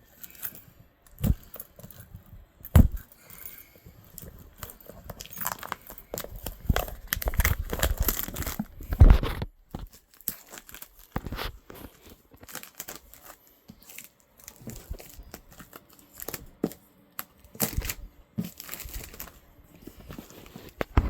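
Packaging being torn and crinkled open by hand, with irregular rustling and scattered sharp clicks and knocks; the loudest burst of tearing comes about nine seconds in.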